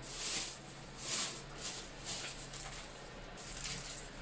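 Rustling and handling noise as items are picked up and moved off camera, in several short soft swells.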